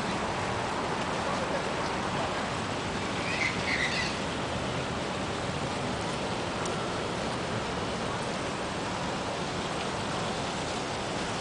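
Steady rushing and splashing of water from a large fountain. A few brief high chirps come through about three and a half seconds in.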